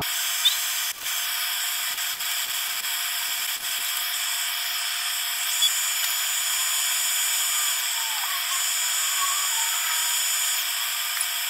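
A drill bit boring into the wooden cap of a pepper grinder, a steady hissy whir with faint scraping, cutting off suddenly at the end.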